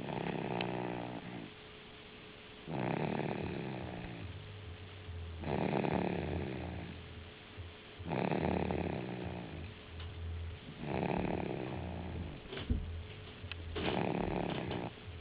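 Snoring in slow, regular breaths: six drawn-out snores about three seconds apart. A few short clicks come near the end.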